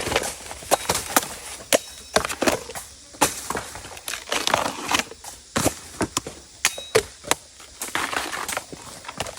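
Bamboo shoots being chopped with a blade: irregular sharp chops, two or three a second, with crunching and tearing of the fibrous shoot between strokes.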